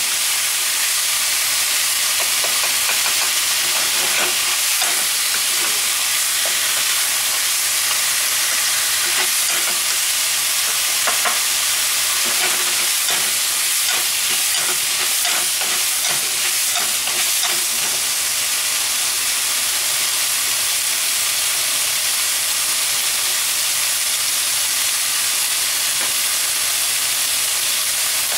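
Bitter melon, pork and tofu sizzling steadily in a hot frying pan, with a wooden spatula scraping and tapping against the pan as the stir-fry is turned. The scraping stops about two-thirds of the way through, leaving only the sizzle.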